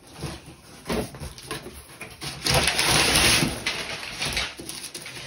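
Handling noise from a cardboard parcel and its packaging: a few knocks, with a longer rustling scrape in the middle.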